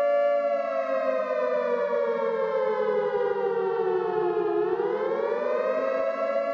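Air-raid siren sounding a take-shelter warning: its tone slides down in pitch over about four seconds, then winds back up and holds steady.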